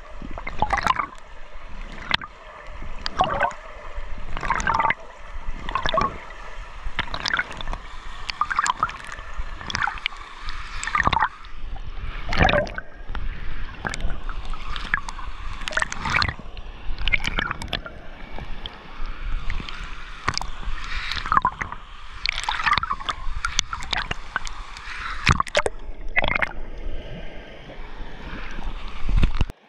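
Water heard through a camera held underwater in a swimming pool: a muffled rushing and gurgling, with a surge of churning water at each swimming stroke, roughly once a second.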